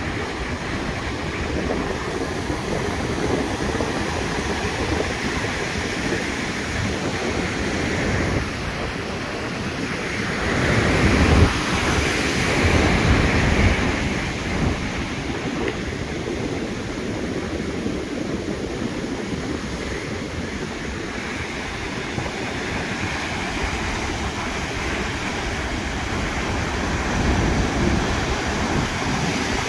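Atlantic surf breaking and washing over the shore and against a concrete breakwater, a steady rush with one louder wave crash about halfway through. Wind buffets the microphone.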